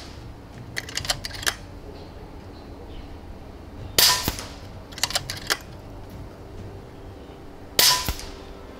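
Airgun Technology Vulcan 3 5.5 mm (.22) PCP air rifle firing twice, about four seconds apart, each shot a sharp crack. A quick run of smaller clicks from the rifle's cocking action comes near the start and again about a second after the first shot.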